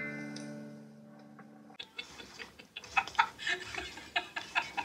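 A held musical chord that fades over about two seconds and cuts off abruptly, followed by a run of short, irregular clicks and taps.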